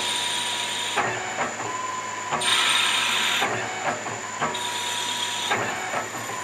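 A metal lathe spindle runs steadily at about 550 RPM while an electronically driven carriage cuts a 3 mm pitch thread. A hissing cutting sound lasting about a second comes three times, with a click at the start and end of each, over the steady hum of the machine.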